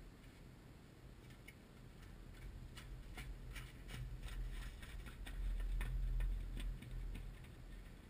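Horses' hooves, one set from a heavy draft horse, striking and splashing in wet mud as the horses trot past close by: a run of irregular sharp clicks, with a low rumble that swells about five to six and a half seconds in.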